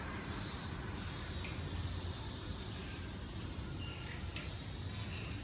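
Steady high-pitched insect drone, with a few short, high chirps scattered through it.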